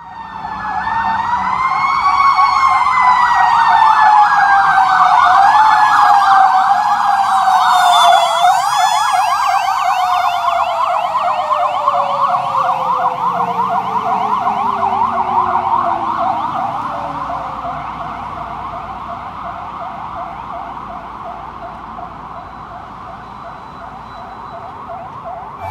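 Ambulance running two sirens at once: a mechanical Federal Q-siren spooling up to a high wail, kicked up briefly twice, then winding down in one long falling tone, under a fast electronic yelp. Both fade as the ambulance passes and drives away.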